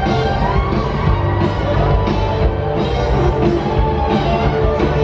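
Loud live band music, a country-rock song with drums, guitars and sustained notes, played over a stadium PA and heard from the stands.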